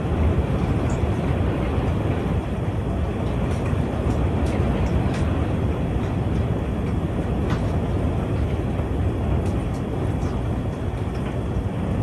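Heavy rain and wind of a storm heard from inside a house: a steady, loud rushing with a low rumble and scattered faint ticks.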